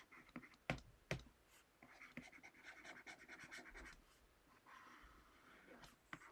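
Faint scratching of a stylus writing by hand on a tablet surface, in two stretches of strokes, with a few light ticks of the pen tip early on.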